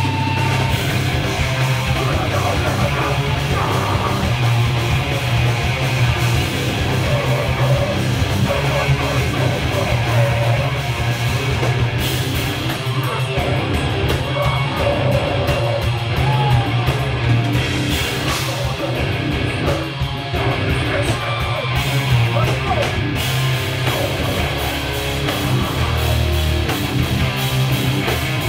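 A live heavy rock band playing loud: distorted electric guitars, bass and a drum kit, with vocals over them.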